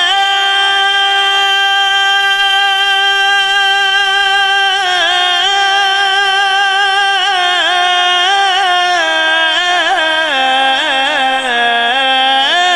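A man singing a naat without instruments. He holds one long note, then from about five seconds in the pitch turns and wavers in fast melismatic ornaments.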